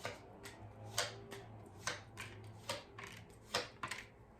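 A deck of tarot cards being shuffled by hand: a quick, irregular series of sharp card snaps and slaps, roughly two or three a second.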